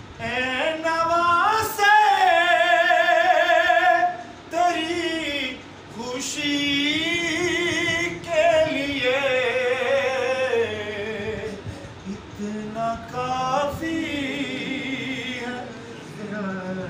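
A man singing a naat solo and unaccompanied, in long drawn-out phrases whose pitch wavers strongly. The singing breaks off with short pauses between phrases and stops a little before the end.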